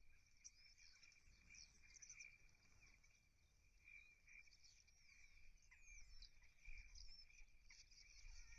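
Faint chorus of small birds chirping and twittering, many quick high notes overlapping, over a steady thin high tone.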